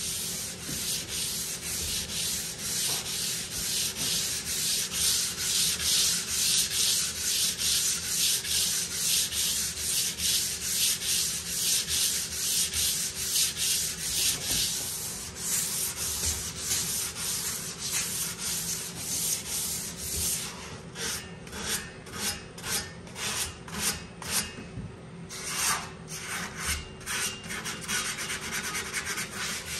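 Sandpaper on a hand block being rubbed back and forth along a metal pinball lockbar while wet-sanding it to regrain the finish: a steady run of short scratchy strokes. In the last third the strokes become sparser and more separate, with brief pauses.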